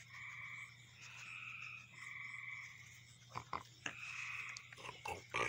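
Frogs calling at dusk, one call of under a second after another. In the second half come a few sharp crunching clicks from a raccoon chewing a cookie.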